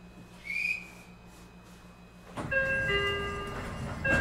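Meitetsu 9500 series train standing with its equipment humming steadily, with a short high squeak about half a second in. A little over two seconds in, a rush of noise and a two-note electronic chime that sounds twice, typical of the doors opening at a station.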